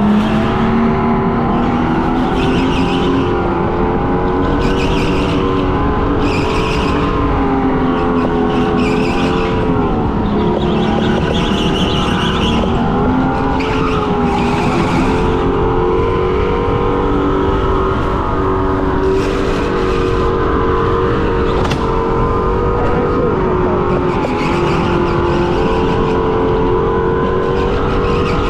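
Electric go-kart's motor whining, its pitch rising and falling with speed, while the tyres squeal in short bursts through the corners, again and again.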